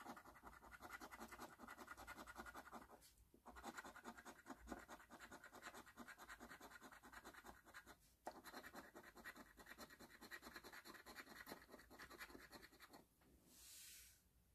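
Faint, rapid scratching of a coin rubbing the coating off an Extreme Cash scratch-off lottery ticket, in three runs with short breaks about three and eight seconds in. A short soft swish follows near the end.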